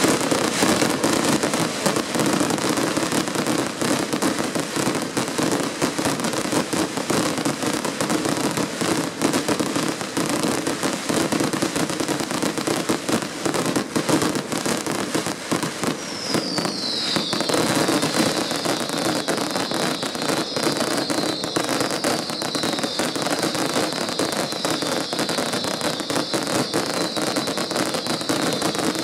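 Fireworks display: a dense, continuous barrage of crackling and banging from many shells bursting at once. Just past halfway a high whistling joins in and carries on.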